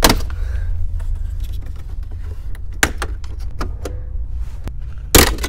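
Plastic trim-panel clips snapping loose as a dash bezel is pried off by hand: a sharp snap at the start, a few smaller clicks about three seconds in, and the loudest snap near the end, over a steady low hum.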